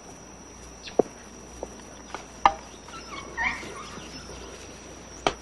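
Beagles trailing a rabbit through swamp brush, giving a few short, sharp yelps spaced a second or more apart, over a steady high drone.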